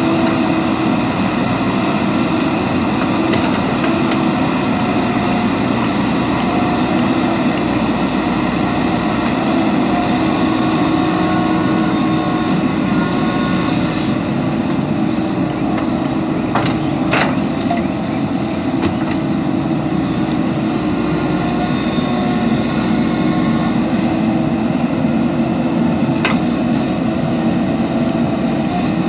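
JCB 3DX backhoe loader's diesel engine running steadily under digging load, with a couple of short sharp knocks about two thirds of the way through and near the end.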